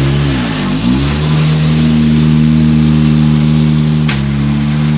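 Hyundai i20 R5 rally car's turbocharged four-cylinder engine running hard at steady high revs, its pitch dipping and climbing back about half a second in. About four seconds in the pitch steps suddenly, with a short sharp crack, as a gear is shifted.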